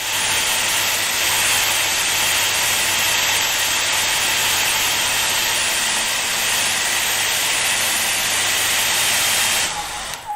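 Power drill running steadily: a dense hiss over a low hum, stopping shortly before the end.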